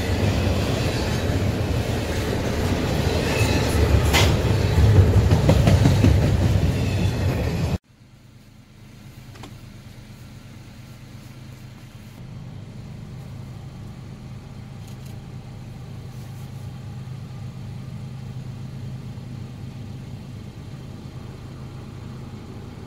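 Double-stack intermodal freight train rolling past, its container cars rumbling and clattering on the rails. About eight seconds in the sound cuts off abruptly to a much quieter steady low hum.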